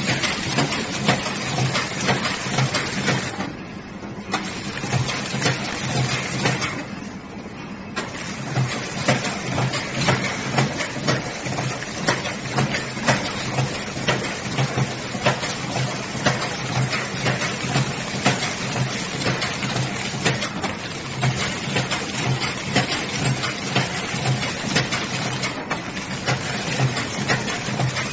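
Automatic energy-ball flow-wrapping machine running: a steady mechanical clatter with a regular knocking rhythm from its feed and wrapping mechanism. It briefly softens twice in the first several seconds.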